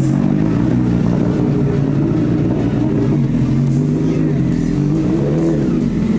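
Honda CBR Repsol sportbike's inline-four engine running steadily at low revs just after starting, with slight rises and falls in pitch as the bike is ridden slowly.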